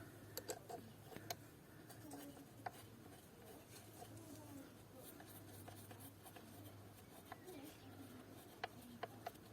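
Near silence: room tone with a faint low hum and a few faint light clicks of handling, several in the first few seconds and three close together near the end.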